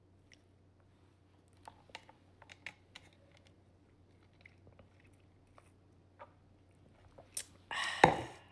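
Someone eating a snack: scattered small clicks and crunches of chewing, then a louder, noisy crunch lasting under a second near the end.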